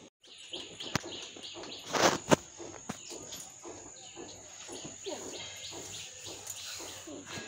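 Birds chirping over a steady high insect drone, with a few sharp knocks about two seconds in.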